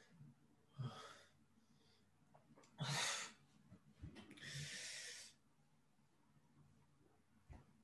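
A man's frustrated, breathy exhales: three huffs about one, three and four-and-a-half seconds in, the middle one the loudest and the last drawn out into a long sigh.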